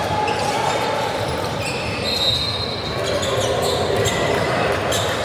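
Basketball game sound in a gym: a ball bouncing on the court over steady crowd chatter, with short high squeaks about two seconds in.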